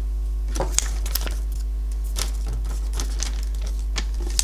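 Light, scattered clicks and taps of hands handling the white cardboard iPad box and its tray, over a steady low electrical hum.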